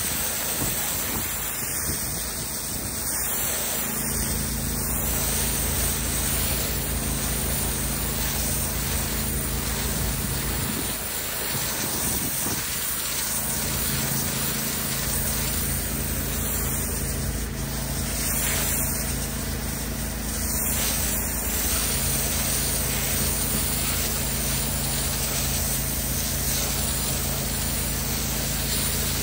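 A pressure washer's high-pressure water jet hissing and spattering steadily against brick steps, over the steady hum of the machine running.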